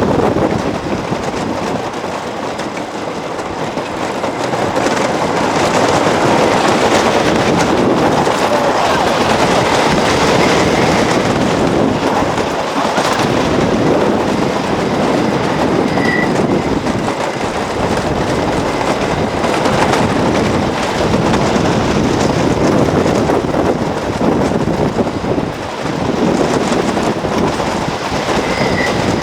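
Wooden roller coaster train running along its track: a loud, continuous rattling clatter of wheels on the wooden structure.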